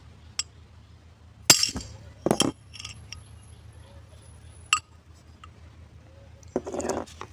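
Claw hammer striking an old bearing laid on a new one, driving the new bearing into an aluminium alternator end housing: a few sharp metallic clinks, the loudest about a second and a half in, with a pair close together just after.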